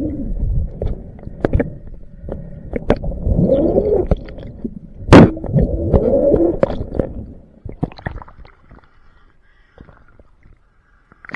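Muffled water sounds picked up by a camera held just under the surface: churning and bubbling water with sharp knocks, the loudest about five seconds in. It turns much quieter about eight seconds in.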